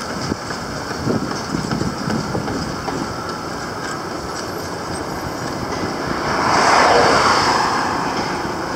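Road traffic rumbling steadily, with one vehicle passing close that swells up and fades away about six to eight seconds in.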